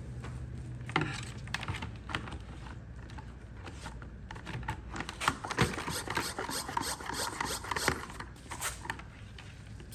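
Plastic pump sprayer of diluted degreaser being handled and readied after filling: rubbing and scraping with scattered irregular clicks, busiest in the second half.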